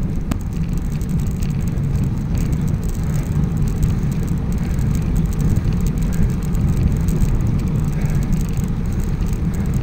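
Steady low rumble of wind and road noise on a bicycle-mounted camera's microphone while riding along a wet lane, with a single click just after the start.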